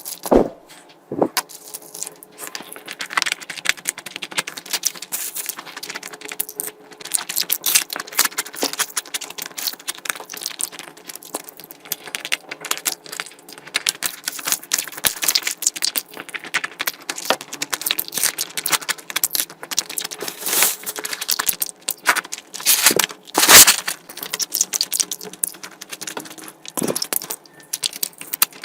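Close-miked eating sounds of a person eating curry: wet chewing, lip smacking and mouth clicks in a dense, irregular stream, with a few louder smacks.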